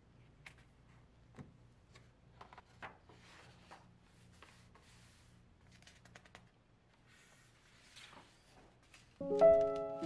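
Faint rustles and light taps of a paperback art book being handled and its pages turned, over a faint low hum. Near the end, louder piano music starts.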